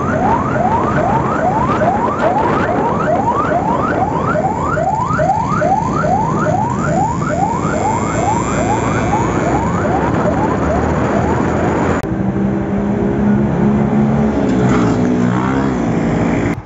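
A police van's siren yelping in quick rising sweeps, about two or three a second, over traffic noise; it fades out before the end. After a cut about twelve seconds in, a vehicle engine runs steadily.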